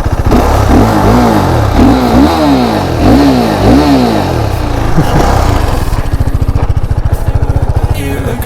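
KTM RC390's single-cylinder engine, a freshly installed replacement, revved up and down about four times in quick succession, then running steadily.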